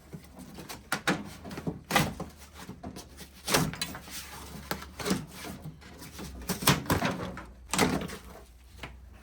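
Irregular knocks, clicks and scraping from a car door and its inner door panel being worked loose and handled. There are about ten sharp knocks, the loudest a little under halfway in and again about three quarters of the way through.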